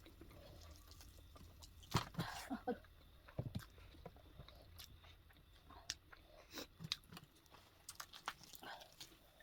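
Close mouth sounds of eating: chewing and biting into food, in scattered short clicks and crunches.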